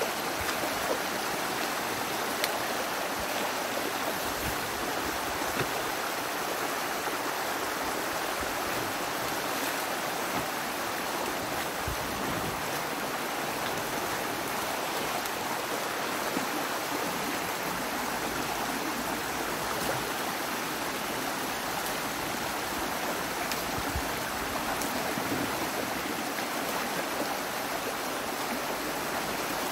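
Stream water rushing and splashing steadily through a breach in a beaver dam being raked apart, the pent-up water draining out. A few light knocks sound over it.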